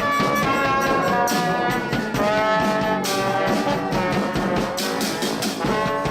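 Brass band playing: trumpets and trombones in held notes over drum hits.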